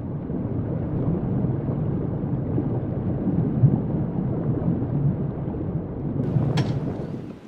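A loud, low rumbling noise that holds steady and cuts off suddenly at the end, with a single sharp click shortly before it stops.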